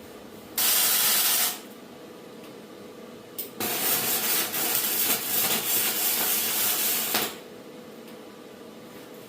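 Aerosol spray can hissing in two bursts: a short spray just under a second long, then a longer one of about four seconds that wavers slightly in strength.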